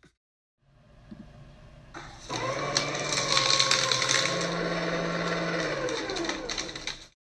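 Electric paper shredder running and cutting paper: a loud steady motor hum with a rasp of cutting over it, starting abruptly about two seconds in. The hum steps up slightly in pitch midway and the sound cuts off sharply near the end.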